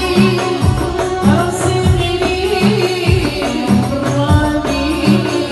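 Moroccan folk music: a violin bowed upright on the knee and a woman singing, over a steady low percussion beat.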